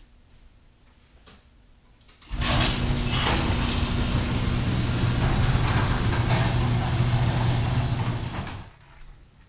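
Electric heat gun switched on, blowing steadily with a low motor hum for about six seconds, then switched off, used to shrink and melt solder-seal heat-shrink connectors on the light's wires.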